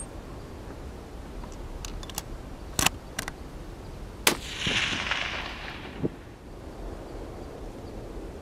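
A single shot from a .300 Remington Ultra Magnum long-range hunting rifle about four seconds in, its report rolling away and fading over a second and a half or so. Several sharp clicks come in the seconds before it.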